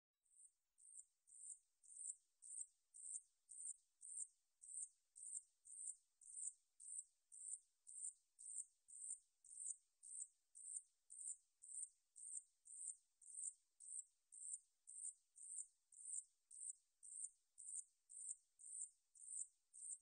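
Sanyeochi (산여치), the Ussuri brown katydid Paratlanticus ussuriensis, stridulating: a high-pitched buzzing chirp repeated evenly about twice a second, each chirp swelling and then stopping sharply.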